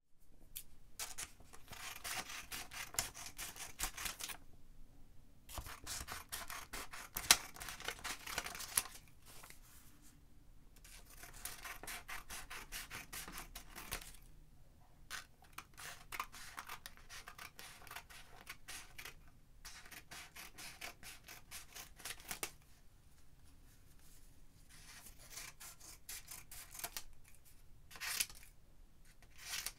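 Scissors cutting through paper in runs of quick crisp snips lasting a few seconds each, with short pauses between runs and a few sharper, louder snips.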